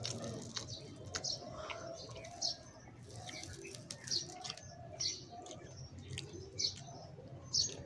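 Birds chirping in short high calls, about one a second, over scattered soft clicks and smacks of chewing and of fingers picking at a grilled fish.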